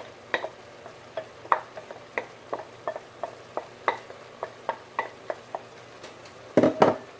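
A spoon knocking and scraping against a cooking pot as chopped vegetables go in with browned ground meat and are stirred: short irregular taps, two or three a second, then a louder clatter near the end.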